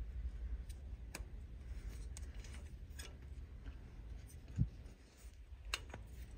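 Scattered light clicks of plastic harness clips and wiring being worked loose by hand, with one louder dull knock about four and a half seconds in, over a low steady hum.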